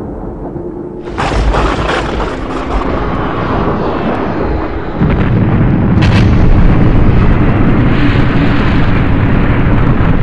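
Sound-effect explosion of a crashing jet airliner: a sudden loud burst about a second in, then a heavier deep boom about five seconds in that rumbles on without a break.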